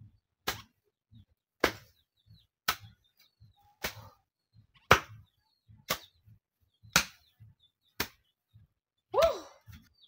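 A hand hoe chopping into farm soil, about one sharp strike a second, nine strikes in all, with softer thuds between them. A short falling cry sounds with the last strike.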